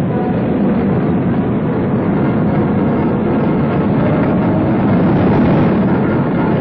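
Tanks on the move: a steady, dense rumble of engines and tracks.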